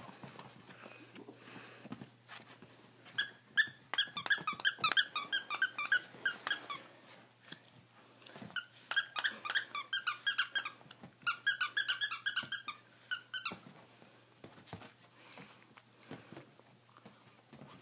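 Squeaker inside a fabric plush dinosaur toy squeaking as a puppy bites and chews it: three runs of rapid squeaks, the first starting about three seconds in and the longest.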